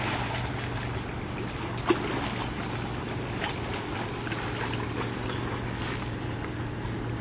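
A low steady engine drone from a boat out on the river, over an even wash of wind and small waves lapping at the rocky shore, with a sharp click about two seconds in.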